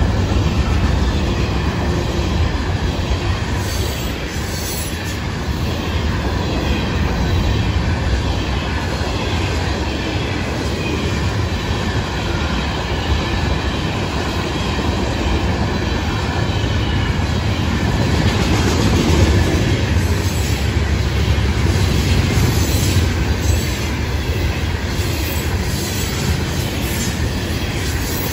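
Freight cars of a Florida East Coast train rolling past close by: a steady heavy rumble of steel wheels on rail, with repeated clicking as the wheels cross rail joints and a faint high squeal from the wheels.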